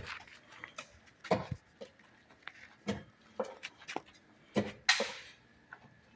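Irregular hammer knocks on wood, about seven in six seconds, at a building site where formwork boards are being struck loose. The loudest knock, about five seconds in, trails off in a brief clatter.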